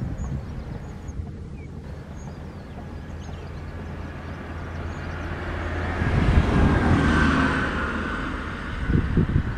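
A steady low engine drone, swelling into a louder rumble about six seconds in, with wind buffeting the microphone near the end.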